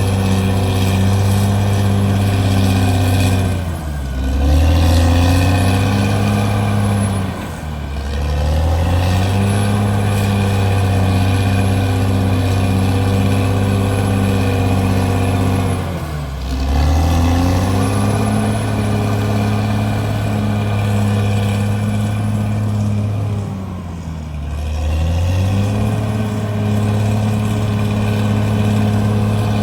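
CAT D6R bulldozer's diesel engine running hard. Its pitch sags and recovers four times as it takes up load and then eases.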